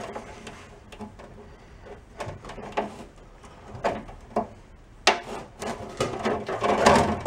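Clicks, knocks and scraping as a plastic rocker switch is squeezed by its tabs and pushed out through the stainless-steel sheet-metal housing of an ultrasonic cleaner. The clicks come singly at first, then become louder and crowd together into a scraping rattle near the end as the switch comes free.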